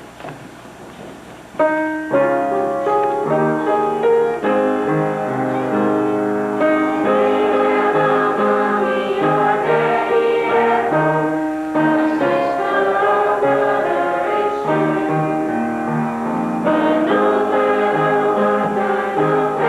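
Music with a choir and keyboard, starting suddenly about a second and a half in and going on with held chords over a pulsing bass line.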